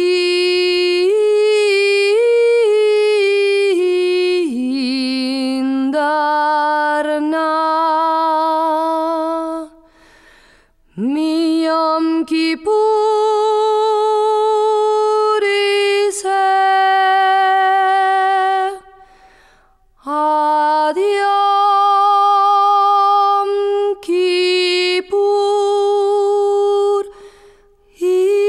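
A solo female voice singing a slow melody a cappella, holding long notes with vibrato and scooping up into some of them. The phrases are broken by short pauses about ten, twenty and twenty-seven seconds in.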